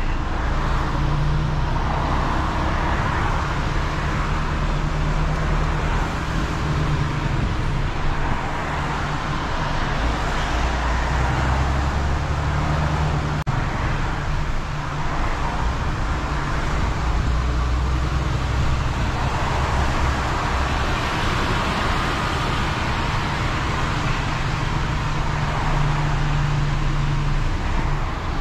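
26-ton Volvo recovery truck's diesel engine running under way while towing, with steady tyre and road noise. The engine note shifts a few times as it pulls through traffic.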